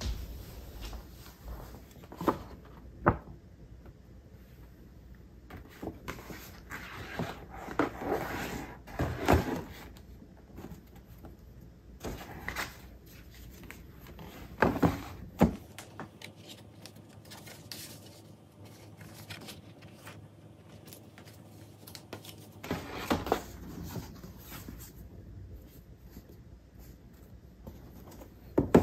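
Stiff paper shopping bag rustling while a cardboard gift box is lifted out and handled, with a few sharp taps and knocks between stretches of rustling.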